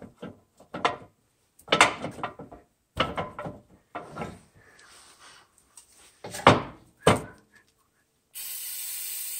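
Steel parts of a skid loader's quick-attach latch linkage knocking and clinking as they are worked into place by hand, in irregular knocks, the loudest about six and a half seconds in. Near the end a steady hiss runs for about a second and a half.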